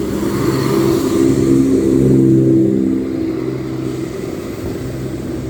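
Diesel engines of a Southern Class 171 Turbostar multiple unit running under power as the train pulls out, a steady low drone that swells about two seconds in and then eases.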